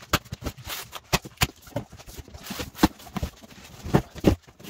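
A cardboard shipping box being opened: a knife slitting the packing tape, then the flaps folding back and the cardboard being handled, giving a run of sharp knocks and scraping rustles.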